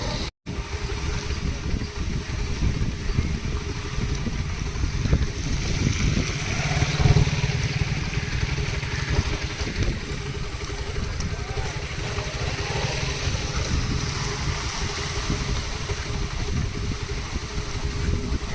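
Motorbike engine running steadily, mixed with the rush of flowing floodwater.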